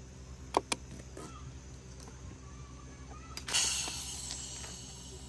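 Two sharp clicks, then a sudden burst of hissing compressed air from a scuba air cylinder that tails off over a second or so.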